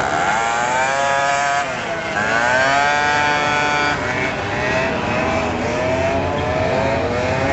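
Scooter engine revving. Its pitch climbs in the first second and a half, drops, climbs again to a held high note by about three seconds, then falls to a lower, wavering speed.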